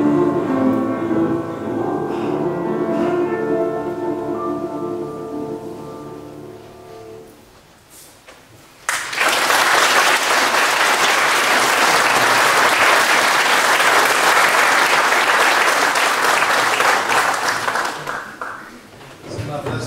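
A mixed choir with piano holding the final chord of a song, dying away over about seven seconds. After a short pause the audience breaks into applause, which runs for about nine seconds and then stops.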